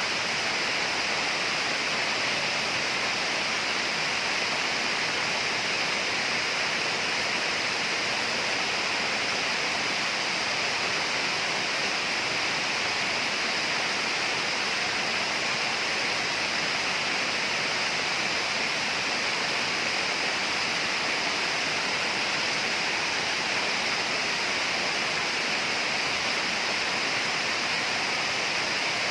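Steady rush of running water, even and unbroken, with no separate splashes or drops.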